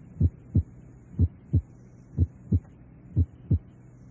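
Normal heart sounds heard at the cardiac apex: four evenly spaced lub-dub pairs, about one a second. The first sound of each pair is lower in pitch and somewhat louder than the second, with a faint steady hum underneath.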